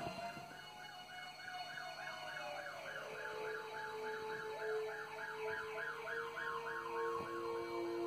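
Emergency vehicle sirens from a film soundtrack, played through a TV's speakers: one warbles quickly, about three or four cycles a second, and a steadier lower tone joins about three seconds in.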